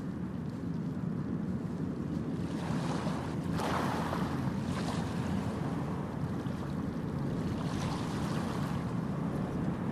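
Wind rumbling on the microphone over the wash of sea water, with a few brief louder rushes of surf or gust about three and a half, five and eight seconds in.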